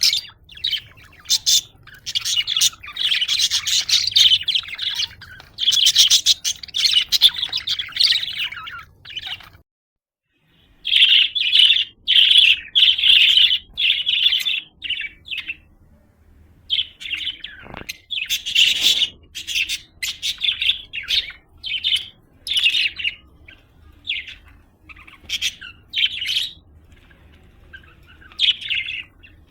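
Budgerigars chirping and warbling in quick, busy runs of chirps, with a break of about a second of silence around ten seconds in.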